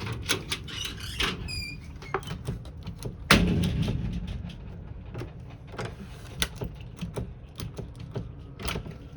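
A run of clicks and knocks, with a heavy door thudding shut about three seconds in and its rumble dying away over about a second.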